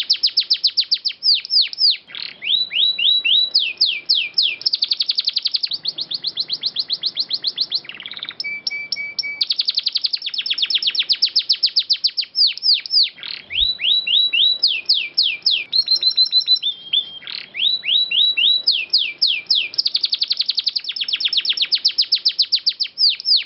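Domestic canary singing a long, unbroken song: fast rolling trills alternating with series of quick down-slurred whistles, changing from one repeated phrase to the next every second or two, with a brief steadier lower whistle about a third of the way through.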